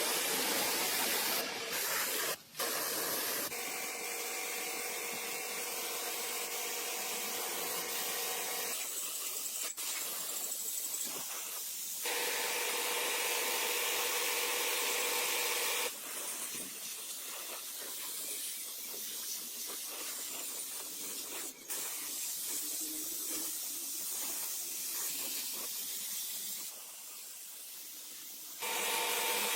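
A steady hissing spray with whistling tones, shifting in pitch and loudness a few times as the jet is redirected or throttled.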